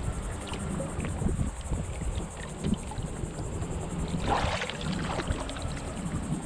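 Water lapping and sloshing against a kayak hull while a large snook is held by the jaw at the surface, then a splash about four seconds in as the fish kicks free and swims off.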